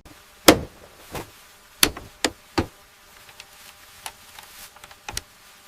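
A series of sharp, irregularly spaced knocks and clicks, about six in all, most of them in the first three seconds and one more near the end, over a faint steady hum.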